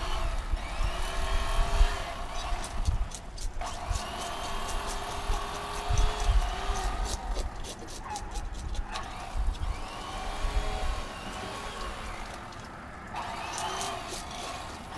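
A hand fish scaler scraping the scales off a bluegill in repeated strokes: rasping, clicking scrapes in spells of a few seconds with short pauses between, and a few low knocks against the wooden table.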